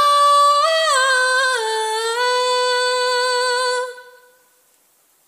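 A woman's unaccompanied voice holding a long wordless note that steps down in pitch twice, then dies away about four seconds in.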